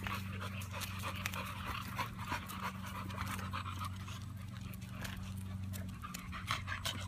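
American Bully dog panting rapidly in the heat, with a steady low hum underneath.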